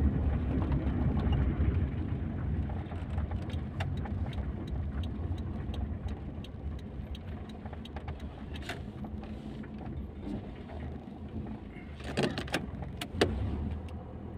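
Car engine and road rumble heard from inside the cabin, growing quieter as the car slows and comes to a near stop. Through the middle comes a run of light ticks, about three a second, and near the end a few sharp knocks.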